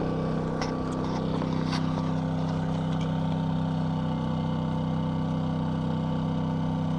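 DuroMax XP2000is inverter generator running steadily under about half load from a 750-watt heater, its engine held at a raised, even speed.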